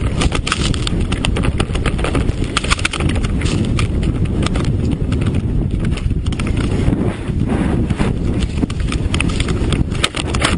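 A riderless snowmobile sliding and bouncing down a steep snow slope: a continuous rumble of snow rushing against the machine, with a dense, irregular clatter of knocks as it jolts over the snow.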